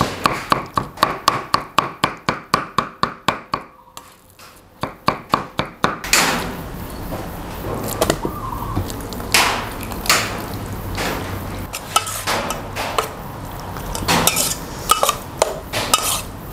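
Heavy cleaver chopping raw beef on a wooden chopping board, quick regular strokes about four a second, with a short pause about four seconds in. From about six seconds in, a metal spoon clinks and scrapes in a stainless steel pot as the minced beef is stirred.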